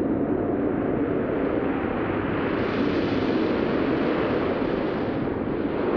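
Stormy sea: heavy waves and wind-blown spray as a steady rushing noise without breaks, dull and narrow on an old film soundtrack.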